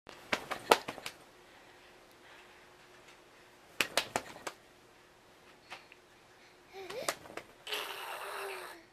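Sharp clicks in two quick clusters, near the start and about four seconds in, then a baby's short rising coo about seven seconds in and a breathy, drawn-out baby vocal sound near the end.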